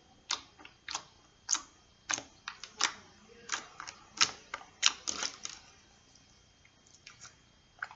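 Slime being squeezed and pressed by hand, making a quick run of sharp clicking pops as trapped air bursts, thick for the first five seconds or so and then a few fainter ones near the end.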